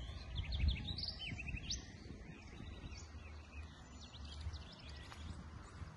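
Small birds chirping in quick runs of short, high chirps, the first about a second in and another around four seconds in, over a low, uneven rumble.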